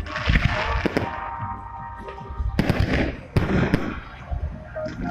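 Aerial fireworks shells bursting overhead: several sharp bangs, each followed by crackling.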